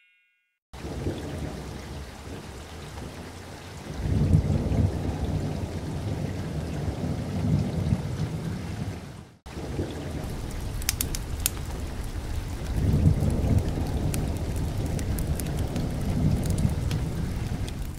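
Rain-and-thunder ambience: a steady hiss of rain with low rolling rumbles of thunder, one swelling about four seconds in and another past the middle. It fades out briefly just after halfway and comes straight back, now with light crackling drops.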